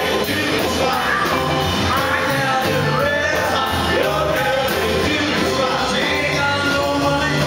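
Live rockabilly band: a male singer over a drum kit keeping a steady beat.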